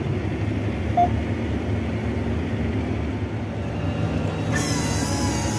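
Tractor diesel engine running steadily while pulling a seed drill, heard from inside the cab. There is one short electronic beep about a second in, and a hiss comes in near the end.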